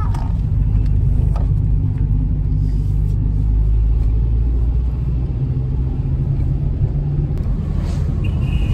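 Car driving on a hill road: a steady low rumble of engine and road noise.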